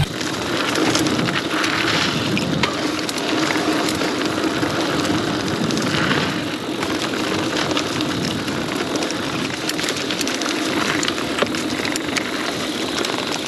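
Mountain bike rolling along a dirt trail, heard from a chest-mounted camera: steady tyre and wind noise with scattered clicks and rattles from the bike.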